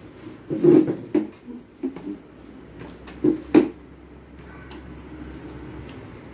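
Eating sounds: chewing and mouth noises, with fingers mixing rice and dal on a steel plate. They come in a handful of short bursts over the first few seconds, then die down.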